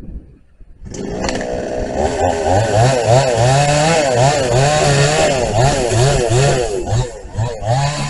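Vintage Husqvarna 1100 chainsaw opened up to full throttle about a second in and cutting into a stump, its engine pitch wavering up and down as it loads in the wood.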